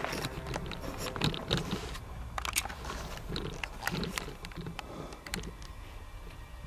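Footsteps crunching and scraping on loose rock and gravel: irregular crunches and clicks, busiest in the first half, over a low steady hum.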